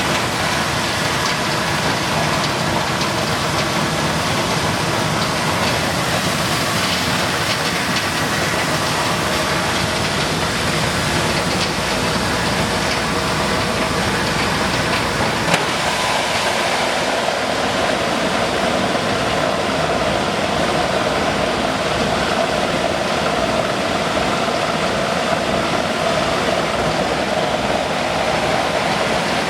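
Electric maize milling machine running steadily with a loud, continuous mechanical grinding noise; a steady hum comes up more strongly about halfway through.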